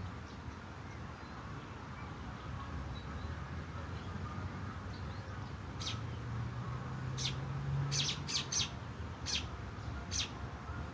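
Bird chirping: a handful of short, high chirps in the second half, over a faint low hum.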